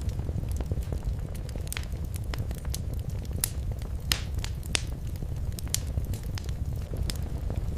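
Wood fire in a fireplace crackling, with irregular sharp pops over a steady low rumble of the flames; the loudest pops come a little after the middle.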